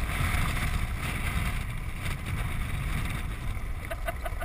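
Land sailer rolling across a hard dry lake bed under sail: a steady low rumble of wind buffeting the camera's microphone and of the wheels, with a few short clicks and rattles from the rig about two seconds in and near the end.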